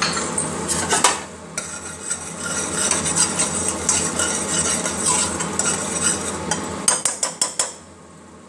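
Steel spoon stirring and scraping masala paste frying in oil in a pressure cooker, with a steady sizzle. Near the end comes a quick run of sharp metal clinks.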